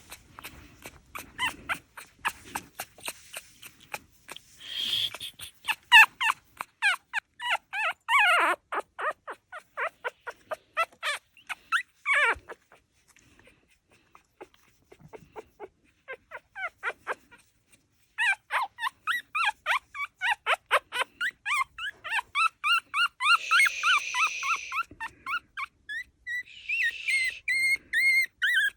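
Young Jack Russell Pomeranian puppies whimpering and squealing in rapid strings of short, high-pitched cries, several a second. The cries stop for a few seconds in the middle of the stretch, then start again.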